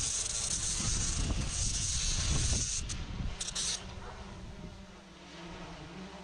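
Power carving tool cutting into wood: a steady rushing, hissing noise that drops away about four seconds in.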